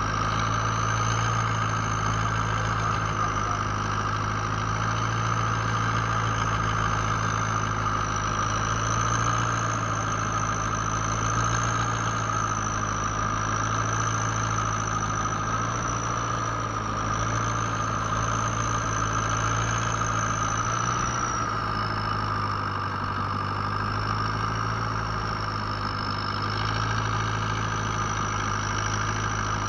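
Fishing boat's engine running steadily at a constant speed, with a thin high whine above it that wavers slightly and drops a little in pitch about two-thirds of the way through.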